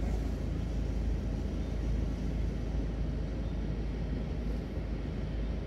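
A car's engine idling, heard from inside the cabin as a steady low rumble.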